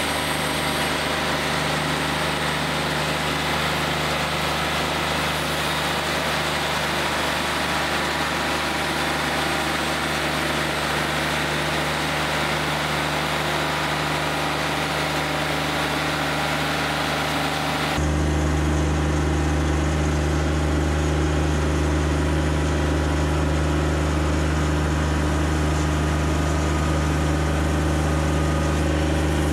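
Wood-Mizer LT40 Wide portable sawmill's engine running steadily. About two-thirds of the way through the sound changes abruptly to a deeper, stronger hum with less high hiss.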